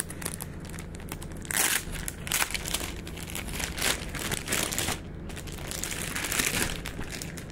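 Plastic packaging bags crinkling and rustling as they are handled and pulled open, in uneven bursts.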